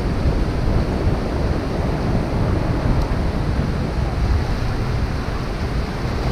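Small surf breaking and washing up the sand, a steady rushing, with wind buffeting the microphone.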